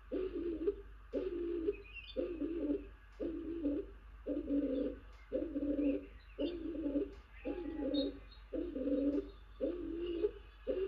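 Stock dove calling incessantly: a low, two-pitched coo repeated steadily, a little more often than once a second.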